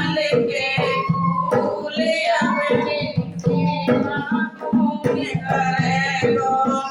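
Bhajan (Hindi devotional song): a voice singing a melody over instrumental accompaniment with a regular beat.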